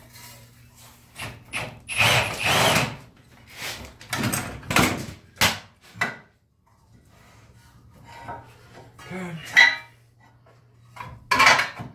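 Hand tools knocking and scraping on the steel front suspension in irregular bursts, as the steering knuckle is worked loose from the lower ball joint. There is a short pause about six seconds in before the knocks start again.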